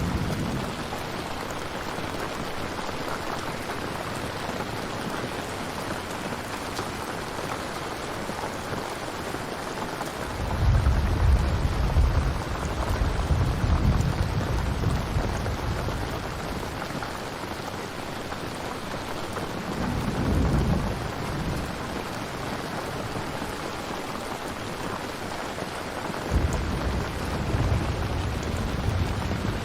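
Steady rain, with rolls of thunder over it: a long rumble starting about ten seconds in, a short one around twenty seconds, and another near the end.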